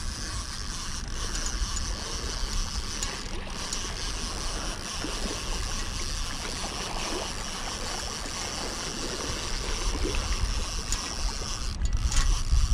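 Steady rush of flowing river water, with a low rumble that grows near the end.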